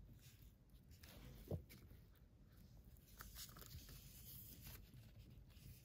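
Faint handling sounds: tissue paper rustling around a canvas handbag as it is lifted and turned, with one soft knock about a second and a half in.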